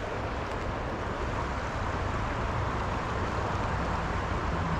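Steady rush of flowing creek water, with a low rumble of wind on the microphone underneath.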